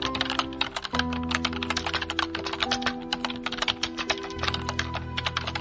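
Rapid keyboard-typing sound effect, many fast clicks a second, accompanying text being typed onto the screen, over soft background music with long held notes.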